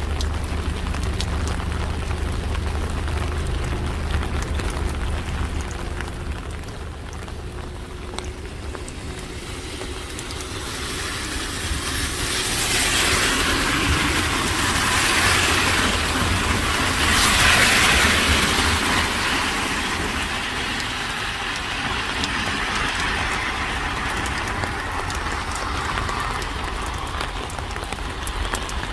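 Steady rain falling on a street, with a low engine hum at first; a vehicle then passes on the wet road, its tyre hiss swelling through the middle and fading again.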